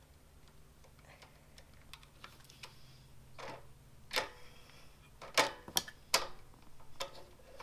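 Scattered metallic clicks and clinks of a ratchet with a 10 mm socket being worked on a bolt. The clicks are faint at first and sharper and more frequent from about halfway through, coming irregularly rather than as a steady run.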